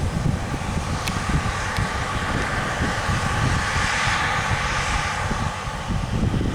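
New Holland CR8.90 combine harvester running as it harvests: a steady machine drone that swells to its loudest about two thirds of the way in and then eases off, with wind rumbling on the microphone.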